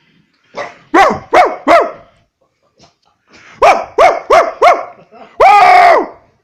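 A dog barks in two bouts: three quick barks, then after a pause four quick barks and a longer, drawn-out bark near the end.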